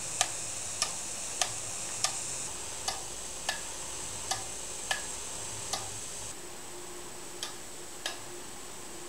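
Airbrush robot at work: a steady high hiss of compressed air from the airbrush, with a sharp mechanical click roughly every two-thirds of a second, the clicks coming a little further apart towards the end.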